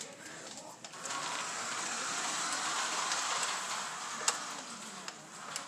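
Small 2WD electric remote-control car running, its motor whirring; the whirr swells for a few seconds and then fades, with a sharp click about four seconds in.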